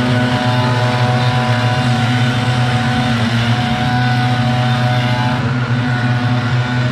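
Backpack leaf blowers running steadily, a loud, even engine drone with a strong low hum.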